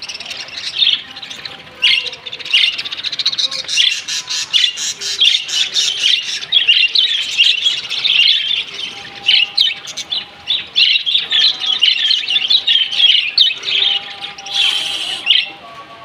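A flock of budgerigars chattering: a dense, continuous stream of warbling chirps and short sharp calls. Near the end comes a brief, louder noisy burst.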